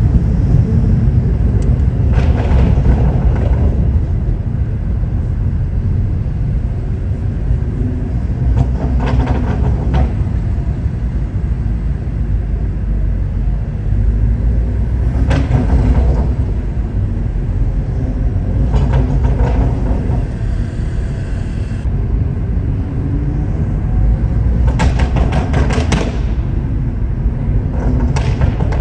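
A Stage 2 BMW M140i's 3.0-litre B58 turbocharged straight-six with a custom exhaust, driving along with a steady heavy low drone of engine, exhaust and road rumble. About five short bursts of sharp crackles stand out above it.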